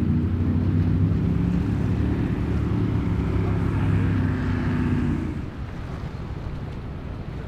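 A large motor yacht's engines running with a low, steady drone, with water rushing along the hull. The drone drops away about five seconds in, leaving a quieter rush of water and wind.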